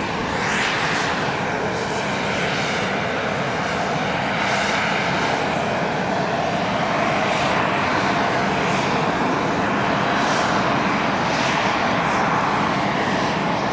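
Scheibe SF-25 C Falke motorglider's piston engine and propeller running during its landing approach and touchdown: a steady drone whose tone sweeps up and down.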